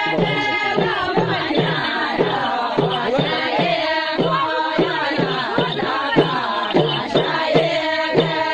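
A group of women singing a Kumaoni chanchari folk song in chorus to a steady rhythm.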